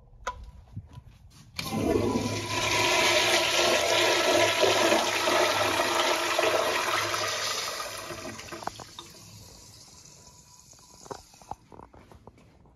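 1960s Crane Santon toilet flushing. After a faint click near the start, water rushes in suddenly about a second and a half in and runs loudly for several seconds. It then tapers off as the bowl refills and cuts off sharply near the end.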